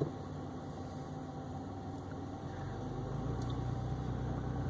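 Car engine running, heard from inside the cabin, with a brief knock at the start; the low rumble grows louder from about halfway as the car pulls away.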